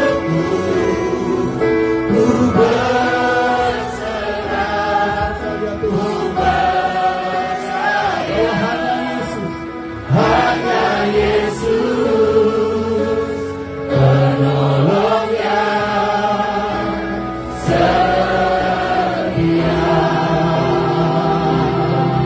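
A group of voices singing a Christian worship song in slow, held phrases over steady sustained accompaniment. The level jumps suddenly about ten, fourteen and seventeen seconds in.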